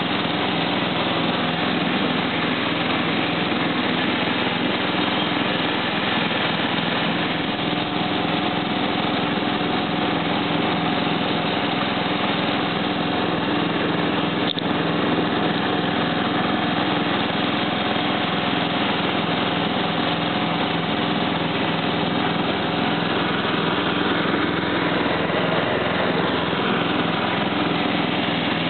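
Simplicity 4211 lawn tractor engine running at a steady speed while the tractor drives across the lawn, with one brief click about halfway through.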